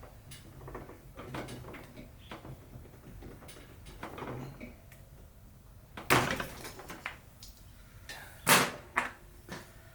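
Irregular knocks and clatter from hands-on work with tools and parts, with two loud bangs about six and eight and a half seconds in.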